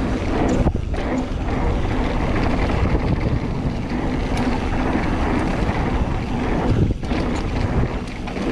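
Mountain bike rolling fast down a dry dirt trail: tyres on dirt and the bike rattling over bumps, under steady wind noise on the microphone.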